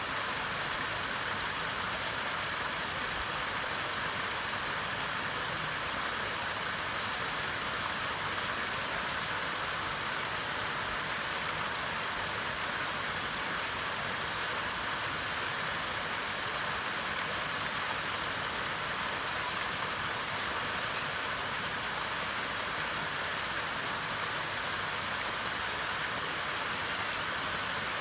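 Waterfall rushing, a steady even roar of falling water that does not change.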